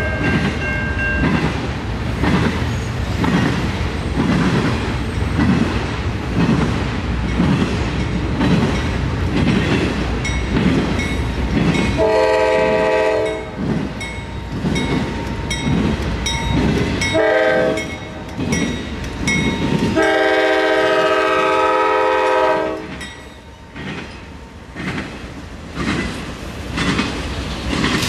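A train's wheels clacking over rail joints in a steady rhythm, with a multi-tone locomotive horn sounding three times: a blast about halfway through, a short one a few seconds later that drops in pitch, and a longer one of about three seconds, after which the clacking carries on more softly.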